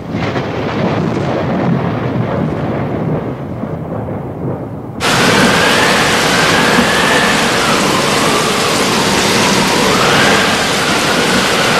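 Floodwater of a river in spate rushing past: a loud, steady wash of noise. About five seconds in it turns abruptly louder and brighter, with a faint wavering tone over it.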